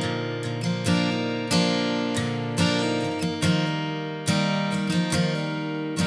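Background music on guitar: plucked notes and chords struck at an even, unhurried pace, each ringing out and fading.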